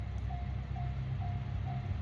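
Level-crossing warning bell ringing, a short electronic ding repeating about twice a second, over a steady low rumble.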